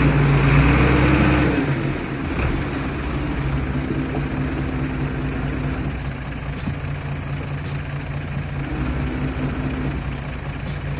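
Heavy diesel engine of earthmoving machinery running. It is louder for the first couple of seconds, then eases off to a steady, lower idle.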